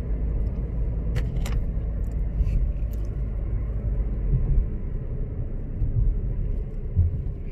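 Steady road noise inside a moving car: a low rumble of tyres and engine with no one talking, broken by two short clicks a little over a second in.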